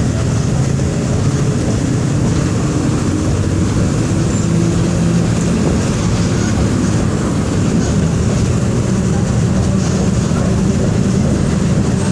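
Diesel engine of a Volkswagen 17.230 EOD bus running steadily under way, a loud low drone whose pitch shifts slightly a few times as engine speed changes.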